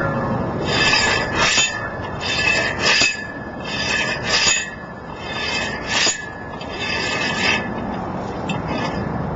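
Scrap steel tubing slid over a steel fence post and worked up and down against it to tap the compression collar into place: a series of metal-on-metal rasping scrapes with a few sharper knocks, coming at irregular intervals of about half a second to a second and a half.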